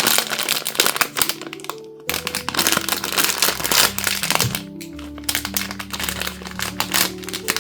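Background music with held notes and a bass line that comes in about two seconds in, over the crinkling and crackling of blind-box packaging being handled and opened.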